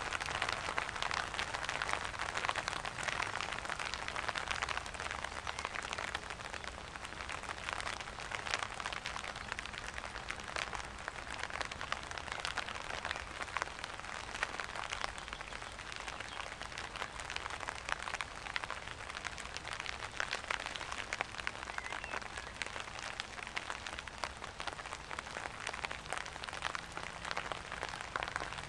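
Steady rain, a dense patter of drops at an even level, with no thunder heard.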